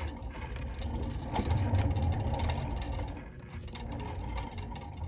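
A wheeled stand or cart rolling across a hard floor: a low rumble with light rattling clicks, strongest about a second and a half in and easing off after about three seconds.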